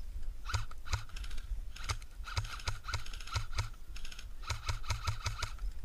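Airsoft gunfire: sharp clicks and ticks in irregular clusters, some quick runs of several in a row, each with a short ringing crack.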